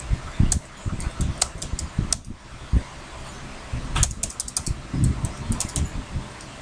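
Computer keyboard being typed on: runs of quick keystroke clicks, a quieter pause in the middle, then another run of keys.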